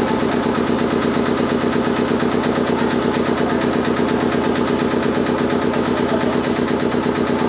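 Gakunan Railway 7000 series electric train standing still, its under-floor auxiliary machinery running with a steady, rapid, even pulse.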